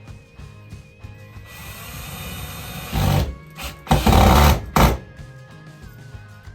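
Power drill driving screws into wood in two short bursts, the second about a second long, over background music.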